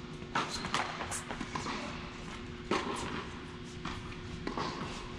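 Tennis play: a few sharp knocks of ball on racket or court, with brief shoe squeaks and footsteps, over a steady low hum.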